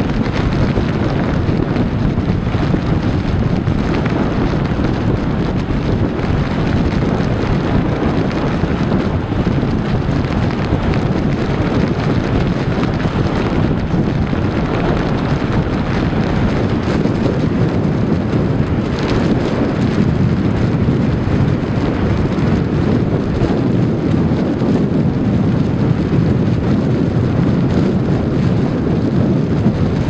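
Strong blizzard wind buffeting the microphone: a loud, steady rush of noise, heaviest in the low end, with no let-up.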